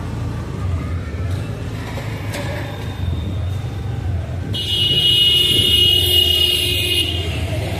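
Steady low rumble of a motorbike riding along a road. About four and a half seconds in, a loud, shrill high-pitched tone starts suddenly, lasts about two and a half seconds and cuts off.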